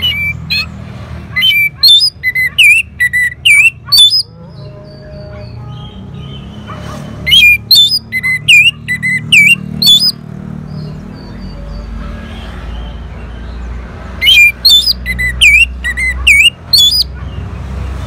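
Orange-headed thrush singing in three loud bouts, one at the start, one in the middle and one near the end, each a fast string of sharp, high, swooping notes lasting about three seconds.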